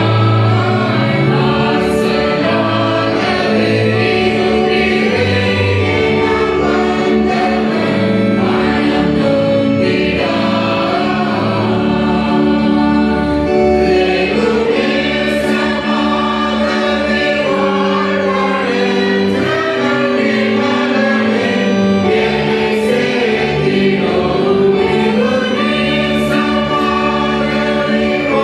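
A church congregation singing a hymn together, slow and steady, with long held notes.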